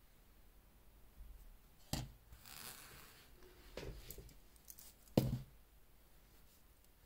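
Faint handling noises: a soft knock about two seconds in and another just after five seconds, with a short rustle and a few light clicks between them.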